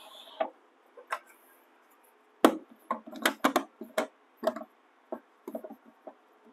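Clacks and knocks of hard plastic parts being handled and set down on the body of a WEN 6524 oscillating belt and spindle sander, with the machine switched off. A sharp knock comes about two and a half seconds in, then a quick run of clacks, and a few more near the end.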